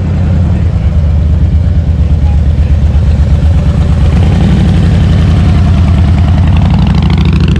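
Motorcycle engine running loud and steady, with a low, fast-pulsing exhaust note.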